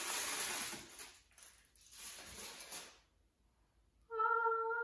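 Aluminium foil crinkling and rustling as it is peeled off a cake, loudest in the first second and dying away by about three seconds in. Near the end a woman's voice holds one steady high note, like a sung "ta-da".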